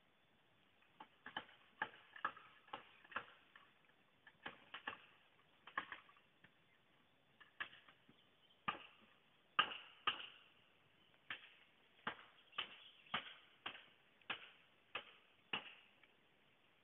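Machete blows chopping bamboo: sharp knocks in uneven runs of about two a second, with short pauses between runs.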